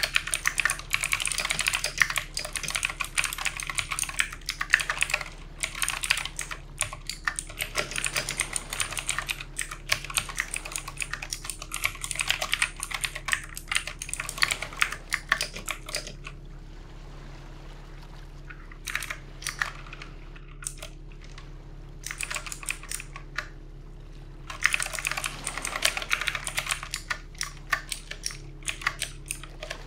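Fast typing on a computer keyboard: a rapid, uneven run of key clicks. Past the middle it thins to a few scattered keystrokes for several seconds, and quick typing resumes near the end.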